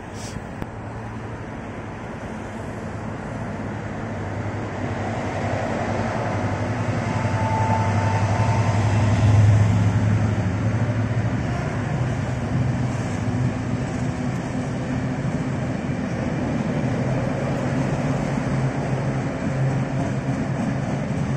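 Diesel freight locomotive hauling a long train of cement tank wagons: its engine grows louder as it approaches and is loudest about nine seconds in as it passes. After that comes the steady rolling of the loaded wagons going by.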